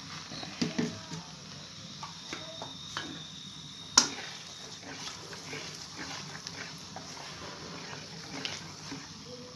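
Blended onion paste sizzling and bubbling in hot oil in a non-stick pot, with a spatula stirring and scraping it and a sharp knock about four seconds in.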